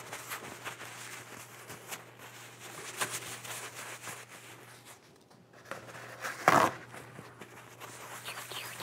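A paper towel rustling and rubbing as a paint-loaded brush is wiped off in it, with small scratchy clicks and one louder brief rustle about six and a half seconds in.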